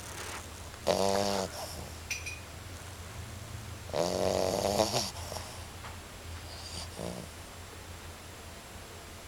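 Puppy snoring in her sleep: two drawn-out, buzzing snores about a second in and about four seconds in, and a fainter one a few seconds later.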